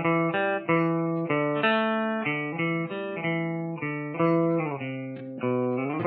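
Intro theme music: a guitar playing a melody of plucked notes, about two a second, each note fading after it is struck.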